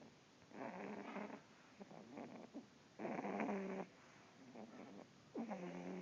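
Dog snoring in a steady rhythm: buzzing snores just under a second long come about every two and a half seconds, three in all, the last starting near the end. Softer crackly breathing sounds fall between them.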